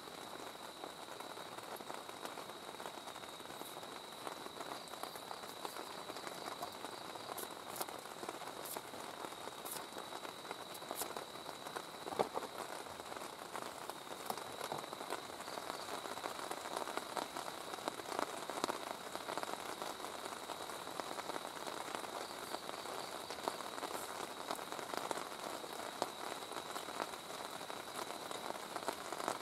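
Rain falling steadily on the tent and the ground around it, a dense crackle of drops, with a thin, steady high-pitched tone running under it.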